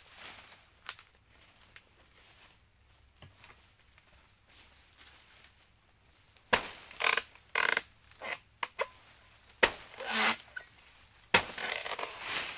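Oil palm harvesting: a blade chopping into an oil palm, with sharp strikes and crunching, rustling bursts starting about halfway through and coming every second or so. A steady, high-pitched insect drone carries on underneath throughout.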